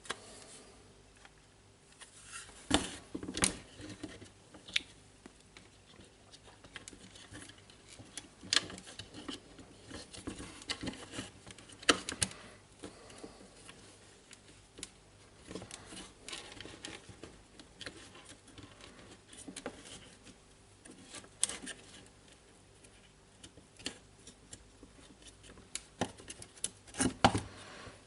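Irregular light clicks and knocks of small jigsaw parts being handled and fitted by hand on a workbench, with a few sharper knocks about three seconds in, around twelve seconds and near the end.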